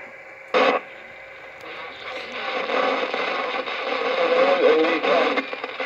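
Amstrad CB 901 27 MHz CB radio on receive: a short burst of noise about half a second in, then static hiss that swells, with faint, garbled wavering signals from distant stations coming in on skip.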